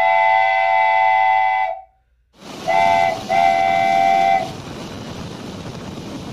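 Train horn sounding a long multi-note blast that cuts off sharply. Then the steady noise of the train running along the track, with a short toot followed by a longer blast of the horn.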